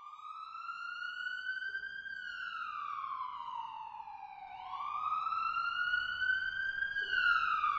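Police siren wailing, rising and falling slowly in pitch twice.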